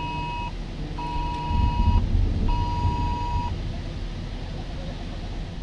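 An electronic alert beeping in a steady tone, about one-second beeps with half-second gaps: one ends half a second in, then two more, the last stopping about three and a half seconds in. A low rumble sits underneath, loudest about two seconds in.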